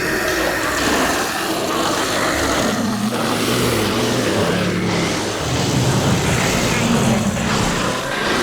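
Zombie growls: several low growling voices that overlap without a break, their pitch shifting up and down.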